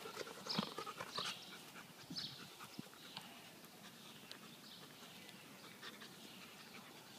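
Faint short dog barks, a few of them in the first two seconds or so, then only faint outdoor background.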